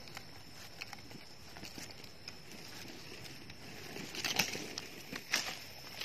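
Hands rustling in dry leaf litter and handling freshly picked wild mushrooms, with small scattered clicks and a couple of louder crackling rustles about four seconds in and just past five seconds. A faint steady high-pitched tone sits underneath.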